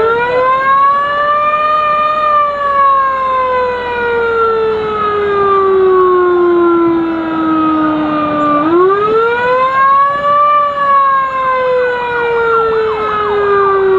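Emergency-vehicle siren wailing in long slow cycles, rising for about two seconds and then falling slowly for about six, twice over. Near the end a second siren wails faster and fainter underneath it.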